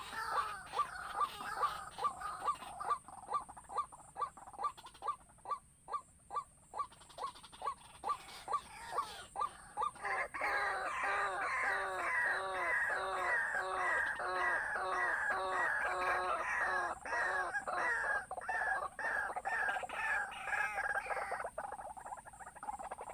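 White-breasted waterhen calling: a long, evenly spaced series of calls, about two a second. About ten seconds in the series becomes louder and fuller, with falling notes, and it trails off near the end.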